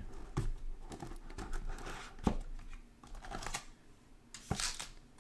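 A cardboard Panini Encased hobby box being handled and its lid lifted off, with soft rustling and scraping of the cardboard. A few light knocks are spread through it, the sharpest a little past two seconds in.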